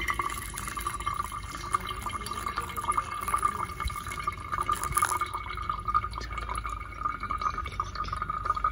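Pour-over coffee brewing: a thin stream of hot water trickling steadily from a kettle's narrow spout onto coffee grounds in a paper filter.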